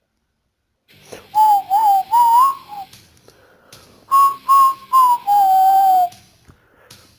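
A person whistling a tune in short phrases, the pitch wavering and gliding between notes. It starts about a second in and breaks off for about a second near the middle.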